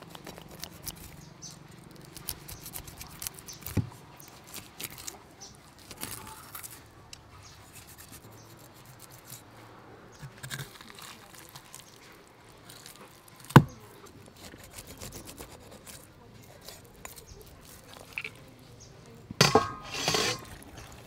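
Knife blade scraping scales off a whole raw fish on a wooden chopping block: a run of quick rasping scrapes and small clicks as the scales come away, with one sharp knock about halfway through and louder scraping near the end.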